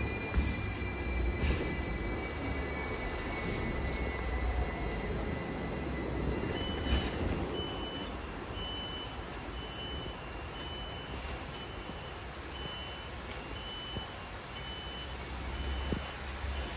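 Hong Kong double-decker electric tram running along its street track, a steady low rumble with a high whine that falls slightly in pitch over the first few seconds. From about a third of the way in, an electronic beeper sounds about once a second, each beep about half a second long, like a reversing alarm.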